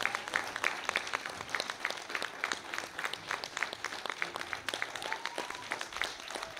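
Audience applauding with a dense, irregular patter of many hand claps, and a short high call from the crowd about five seconds in.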